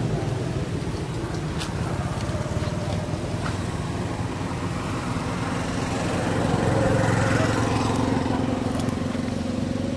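A motor engine running steadily, a low hum that grows a little louder about seven seconds in, with a few faint clicks.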